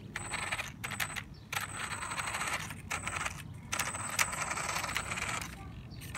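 Brushless electric RC snowmobile fitted with wheels, driven in short bursts: a metallic rattling and jingling with a thin high whine, stopping and starting about five times.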